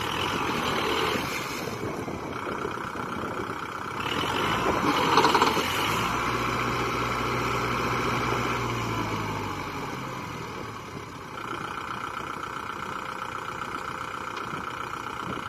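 Kubota MU4501 tractor's four-cylinder diesel engine running while the tractor is stuck in a muddy canal, working to get out. It revs up about four to six seconds in, eases back around ten seconds, then runs steadily.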